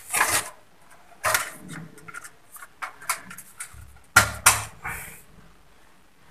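Plastic clicks and knocks from a toilet cistern's plastic fill valve assembly being worked apart with a hand tool to remove a part: a handful of short, irregular clicks, with a louder pair about four seconds in.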